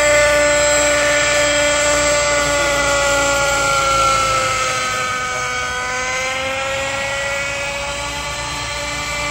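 Century Hawk Pro radio-controlled helicopter in flight, its engine and rotor making a steady high whine whose pitch sags about five seconds in and climbs back. It is running as set up after its final tuning tweak.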